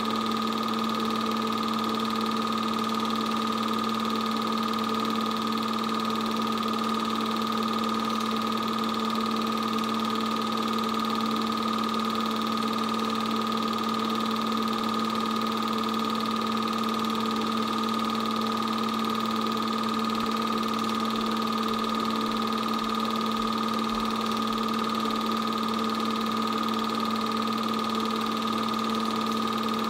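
Steady, unchanging hum and whir of a running 8mm film projector's motor and fan, with a few fixed tones over a noise haze.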